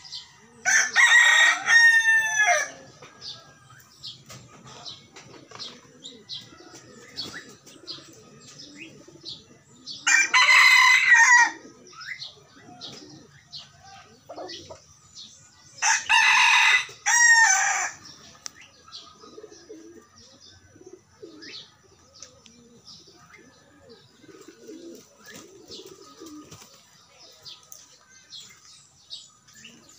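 A rooster crowing three times, each crow about two seconds long: near the start, about ten seconds in, and about sixteen seconds in.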